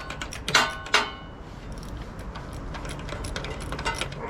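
Light metallic clinks and ticks of hand tools and small parts being handled while a lawn tractor's carburetor is reassembled, with a brief ringing clink about half a second in and scattered small ticks after.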